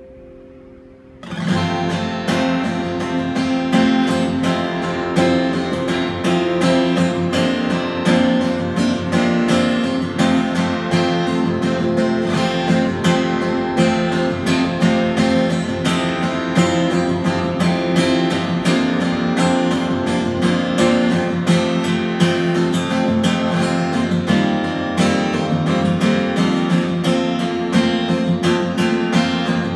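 Solo acoustic guitar played fingerstyle. A few held notes ring and fade, then about a second in it breaks into fast, loud strummed and percussive playing with many sharp attacks.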